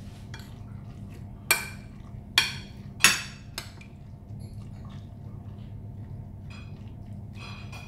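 A metal spoon and a ceramic bowl clink sharply against a ceramic platter three times, from about a second and a half in to three seconds, then a fainter fourth time, while coleslaw is scraped out of the tipped bowl. Softer scraping ticks follow.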